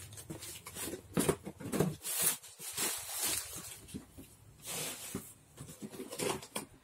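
Packaging being handled: cardboard and packing paper rustling and scraping in a run of short, irregular noises.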